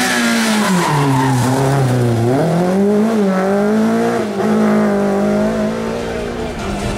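Renault Clio rally car's engine at full revs on a stage. The revs drop sharply about a second in as it brakes and downshifts, then climb again and hold high as the car drives off through a bend, sliding out in a cloud of dust.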